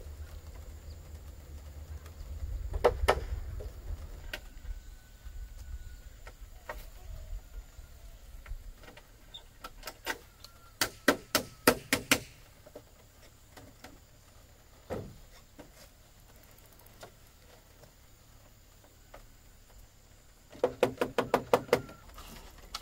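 Quick runs of sharp knocks: a couple about three seconds in, a fast run of about seven strikes from ten to twelve seconds, and another fast run of about eight near the end.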